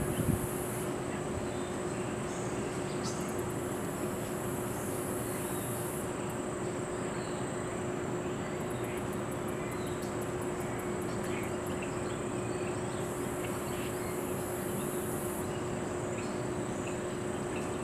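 Insects trilling in very high-pitched stretches of a few seconds that start and stop, one stretch pulsing rapidly, over a steady low hum and general outdoor ambience.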